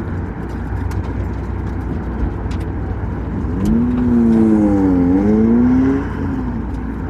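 Sports car engine running under load during an autocross run, heard from inside the open cabin as a steady low drone. About three and a half seconds in, the engine note comes up louder, dips in pitch and then climbs again for about two seconds before settling back.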